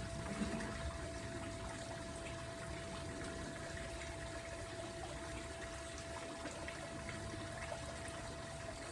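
Steady trickle of running water, with a faint steady hum and a few light clicks.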